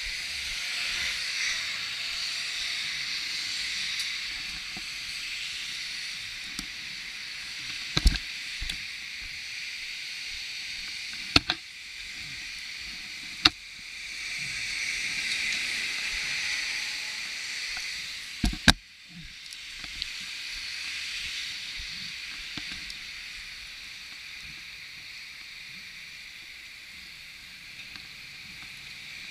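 Steady hiss of tyres rolling over a wet road, swelling and fading, with several sharp knocks along the way.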